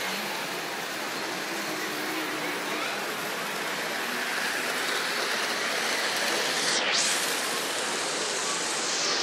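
Steady rushing background noise of a busy exhibition hall, with a faint murmur of voices.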